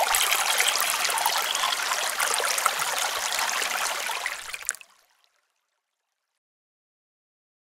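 Water sound effect: a steady noise of flowing, splashing water that fades out about five seconds in, followed by silence.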